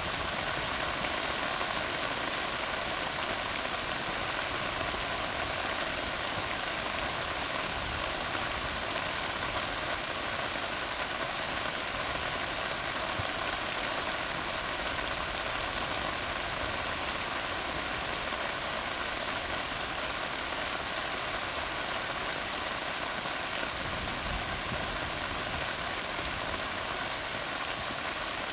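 Steady rain falling on a tar road, an even hiss of drops with scattered individual splashes.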